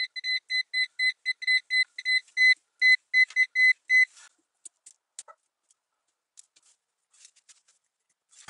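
Orange clamp multimeter's continuity beeper giving a quick run of short, high beeps, about four a second, as the probes touch fuse after fuse. Each beep shows the fuse conducts and is intact. The beeping stops about four seconds in, leaving only faint clicks.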